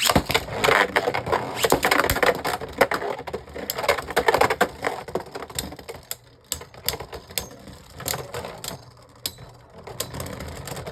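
Beyblade Burst spinning tops battling in a stadium: a dense, rapid clatter of plastic and metal tops clicking and knocking against each other and the stadium, thinning out over the second half as they slow.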